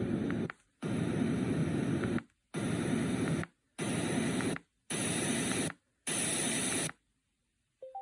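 Reacher R2 white noise machine playing its white noise settings one after another: steady hiss in blocks of about a second, cut by short gaps, with each block a different shade of noise as the setting changes, from deeper to brighter.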